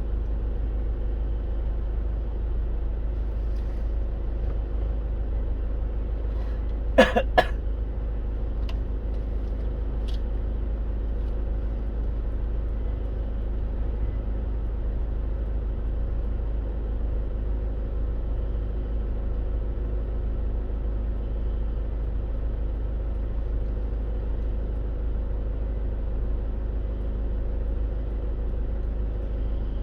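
Steady road and engine noise inside a moving car's cabin, a deep constant rumble under an even hiss. About seven seconds in, two or three short sharp sounds come close together.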